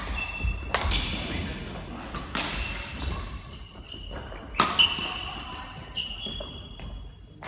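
Doubles badminton rally on a wooden court: about five sharp racket strikes on the shuttlecock, with sneakers squeaking and feet thudding on the floor between shots.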